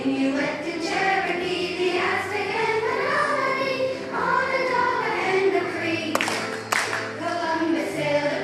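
A group of young children singing a song together. Two sharp knocks cut through the singing about six seconds in.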